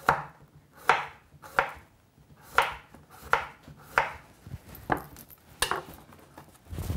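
Kitchen knife slicing a cucumber into rounds on a wooden chopping board: about eight crisp cuts at a steady pace, roughly one every three-quarters of a second, stopping near the end.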